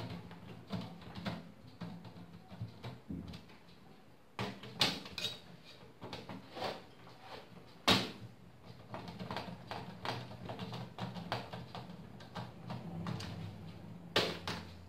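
Screwdriver driving a case fan's screws into a steel PC case: scattered light metal clicks and scrapes, with sharper knocks about four and a half and eight seconds in.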